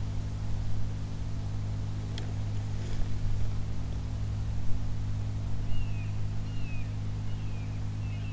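A steady low mechanical hum, with a bird giving short falling whistled calls several times in the last few seconds.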